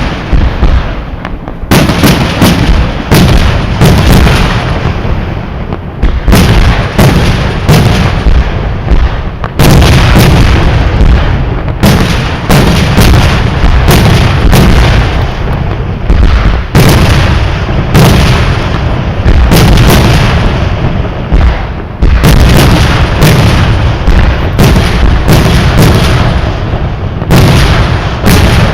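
Fireworks display in full barrage: loud aerial shell bursts going off one after another with deep booms and hardly a pause, a couple of second-long lulls around six and twenty-two seconds in.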